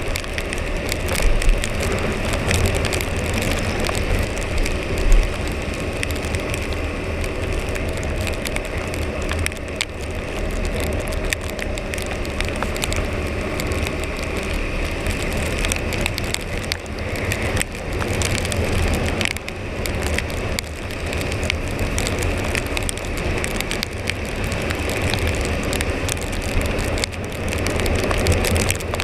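Husqvarna Svartpilen 401's single-cylinder engine running on its stock exhaust while riding, with rain hiss and scattered sharp taps throughout.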